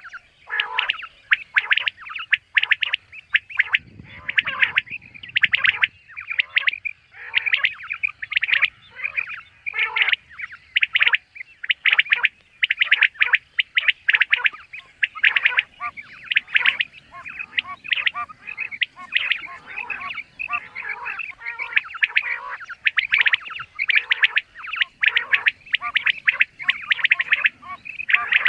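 Common quail calling over and over, short whistled notes following one another in a quick, dense run with hardly a pause.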